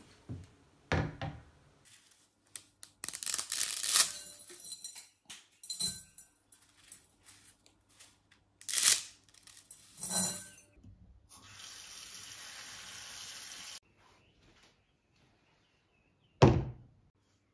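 A glass mixing bowl thunks down on a wooden counter, then dry spaghetti is snapped in half and dropped clattering into the bowl in several loud bursts. Near the end, water runs steadily into the bowl for about two seconds, followed by one sharp knock.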